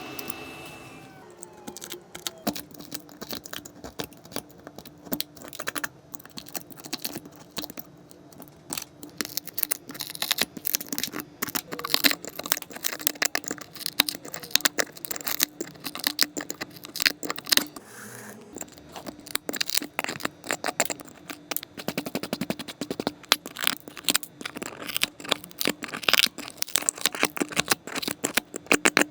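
Dense, irregular crackling and clicking as the cracked back glass of an iPhone 12 Pro is worked off the phone, over a faint steady hum.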